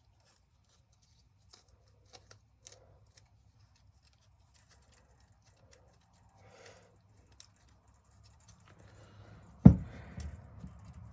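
Faint scattered clicks and rustles of hand tools and small metal carburetor parts being handled while screws are removed, then one sharp knock about ten seconds in, followed by louder handling noise.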